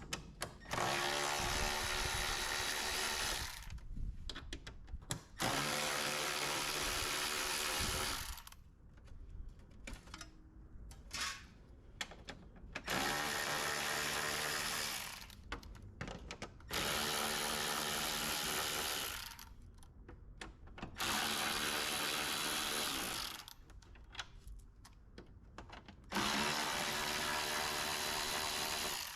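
An electric drill-driver runs in six steady bursts of two to three seconds each, each one starting abruptly and winding down, as it backs out the screws holding a front license plate bracket.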